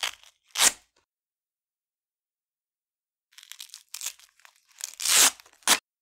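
Velcro hook pieces ripped off a roller covered in loop fabric. Two quick rips come at the start. After a pause of about three seconds there is a run of short rips, then one long loud rip and a last short one near the end.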